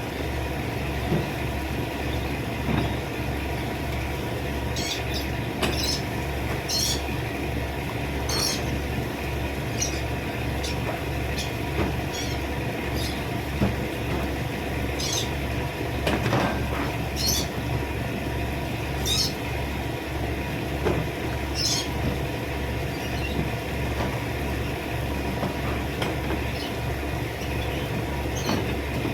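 A steady low mechanical drone that pulses evenly about twice a second, with scattered short high chirps and an occasional knock.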